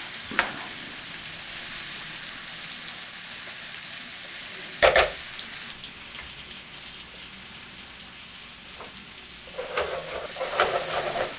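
Flour-dredged chicken fillets sizzling as they brown in butter and olive oil in a frying pan, a steady hiss. There is one sharp knock about five seconds in, and near the end a run of short knocks and scrapes as things are stirred in the pan.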